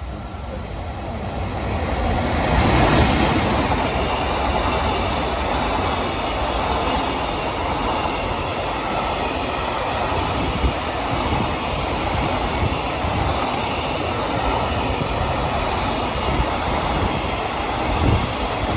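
A train rumbling past, growing louder over the first few seconds, then running steadily, with wheels clattering over the rails and an occasional click.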